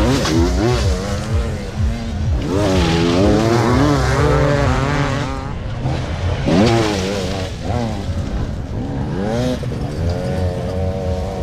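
Several motocross bike engines racing, overlapping as they rev up and down through the gears. One rises sharply and is loudest about six and a half seconds in.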